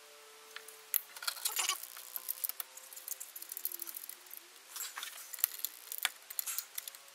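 Small metallic clicks and rustles from hands fitting a cable's ring terminal onto a split charge relay's terminal stud and threading the nut on, with one sharper click about a second in. A faint steady hum underneath.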